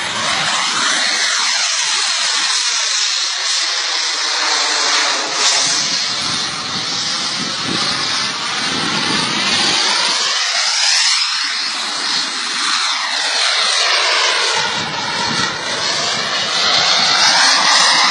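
Jet engine of an F-16-style jet flying low passes overhead: a steady hissing whine with a faint high tone, its pitch sweeping up and down each time the jet comes and goes. It grows louder near the end.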